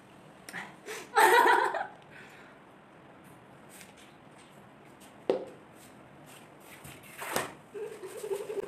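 Two people drinking soda from plastic bottles held in their mouths, hands-free: a few short breathy bursts and bottle knocks, the loudest about a second in, then a brief hummed voice near the end.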